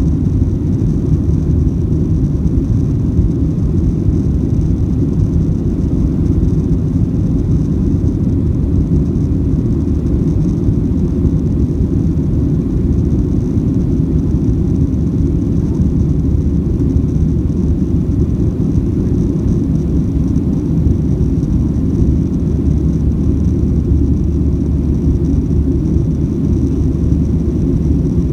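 Boeing 737-700's CFM56-7B engines and airflow heard from inside the cabin: a steady, loud, low rumble with a faint hiss above it, unchanging throughout.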